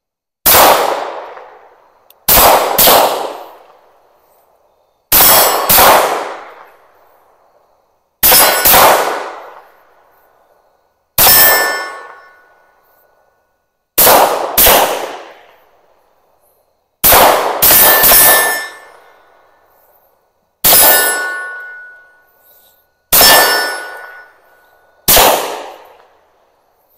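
Tisas PX-9 Gen 3 9mm pistol firing about fifteen shots, single shots and quick pairs spaced two to three seconds apart, each cracking sharply and dying away over about a second. After several shots a steel plate target rings with a clear metallic ping.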